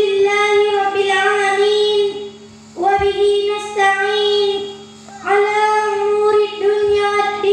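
A girl's voice singing long, held melodic phrases into a handheld microphone: three phrases of about two seconds each with short breaks between them. A steady low electrical hum runs underneath.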